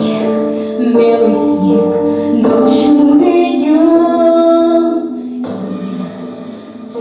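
A woman singing a song in long held notes that glide between pitches.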